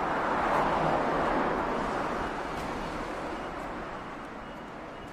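Road traffic going by, a vehicle passing that swells about a second in and then slowly fades.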